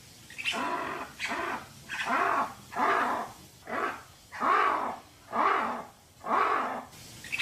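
Lemur calling: a steady series of short pitched calls, a little more than one a second.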